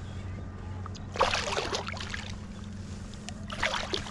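Water splashing in two bursts as a hooked fish thrashes at the surface while it is grabbed by hand: a longer burst about a second in and a shorter one near the end. A steady low hum lies underneath.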